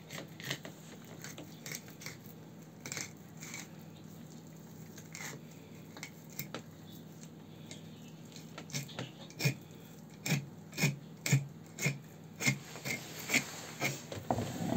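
Knife cutting and scraping through a large pike along its backbone. At first there are a few scattered clicks; from about halfway through come steady strokes, about two a second, as the blade works through.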